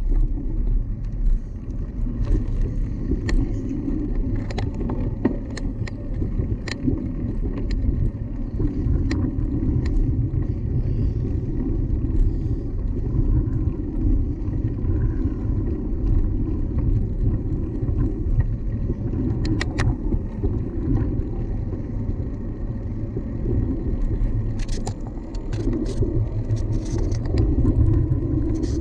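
Steady low rumble of riding on a bicycle, with frequent scattered rattles and clicks from the bike.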